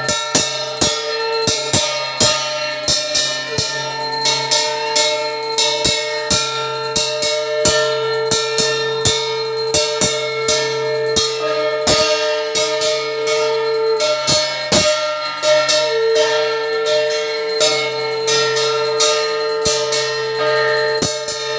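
A conch shell (shankha) blown in long, steady, held notes, with short breaks for breath, over a metal bell struck in quick, uneven strokes: the conch and bell that accompany a Hindu aarti.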